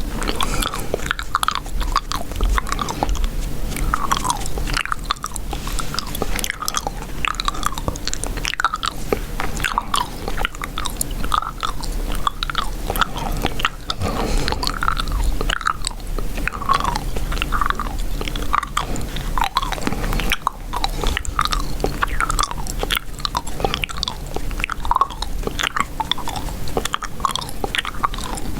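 Chewing gum close to the microphone: a steady, dense stream of short mouth clicks and pops from continuous chewing.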